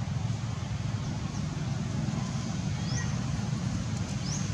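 Steady low rumble of outdoor background noise, with two short rising high-pitched chirps about three and four seconds in.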